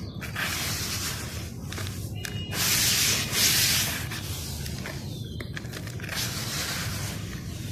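Gritty sand-and-dirt mixture being rubbed and crumbled by hand, a scraping, rustling grind with short pauses, loudest about three seconds in.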